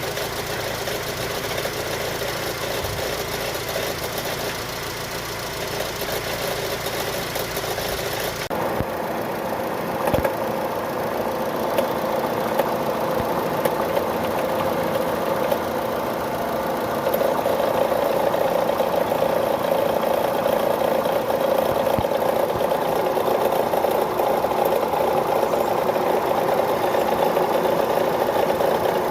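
Chevrolet engine idling steadily, with the abnormal engine noise that the video sets out to show. About a third of the way in, the sound changes: the high hiss drops away and a mid-pitched hum grows louder, with a few separate clicks.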